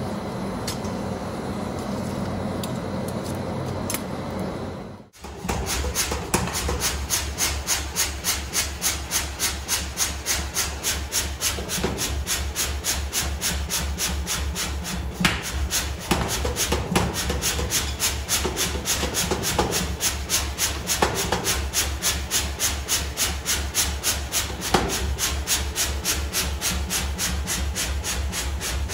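A coal forge fire with its air blower running steadily. Then, about five seconds in, a mechanical power hammer starts pounding a handled forging tool into a red-hot steel bar, in an even, rapid rhythm of about five blows a second.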